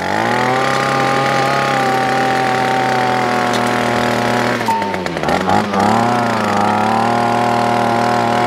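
Titan 25cc two-stroke strimmer engine running under load as it drives a tiller attachment's tines through soil. The engine note holds steady, then dips in pitch and recovers once, about five seconds in.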